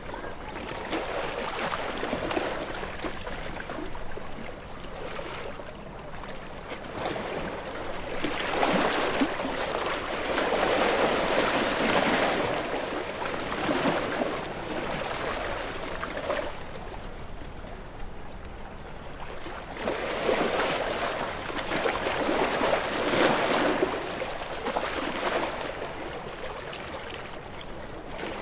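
Sea waves breaking and washing ashore: a rush of water that swells and eases in slow surges, two of them clearly stronger than the rest.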